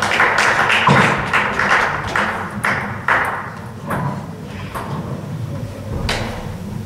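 Table tennis balls clicking on tables and bats in a large sports hall, scattered short clicks over a busy hall noise. A single sharper click comes about six seconds in.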